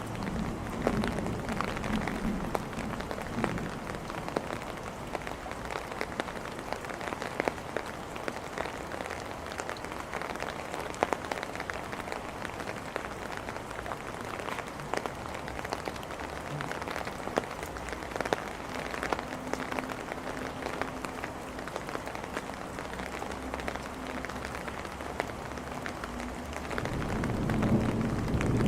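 Steady rain falling on hard surfaces, with many scattered sharp drops and drips. Near the end a low rumble of thunder swells up.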